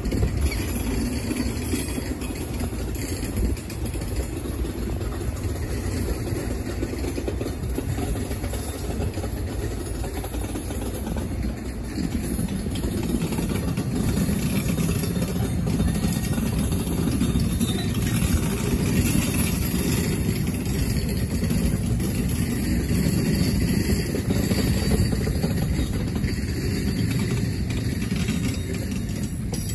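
NJ Transit Multilevel double-deck commuter train rolling past and pulling away: a steady low rumble that grows a little louder about halfway through.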